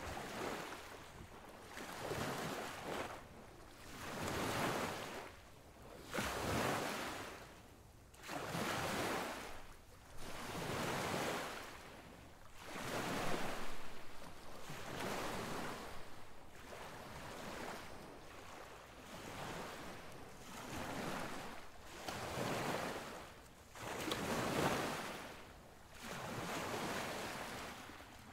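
Surf washing in: a noisy rush that swells and fades about every two seconds.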